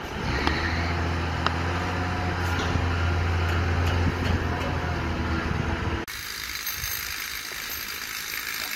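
Wheel loader's diesel engine running steadily with a deep hum while it works its bucket, with a sharp metallic click about a second and a half in. About six seconds in it cuts off abruptly to a quieter, hissy construction-site background.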